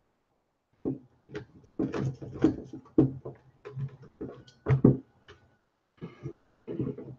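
Repeated knocks, bumps and rubbing from a plastic football helmet being pressed and worked against a wooden table while a visor screw is set, starting about a second in.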